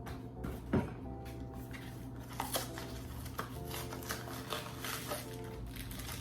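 Background music with steady held notes, over intermittent crinkling, rustling and light clicks of cake-mix packaging being handled and opened.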